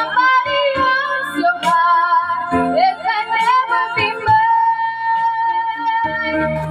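A young girl singing into a corded microphone over a recorded karaoke backing track. Her voice wavers through a phrase, then holds one long steady note for about two seconds near the end.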